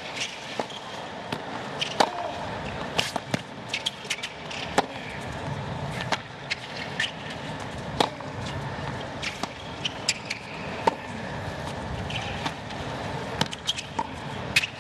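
Tennis rally on a hard court: sharp racket-on-ball strikes and ball bounces come about every second and a half, with lighter clicks between them, over a steady hum of the stadium crowd.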